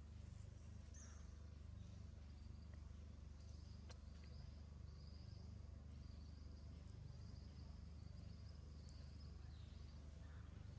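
Near silence with a steady low hum, and from a few seconds in a faint high trilling of insects that fades near the end.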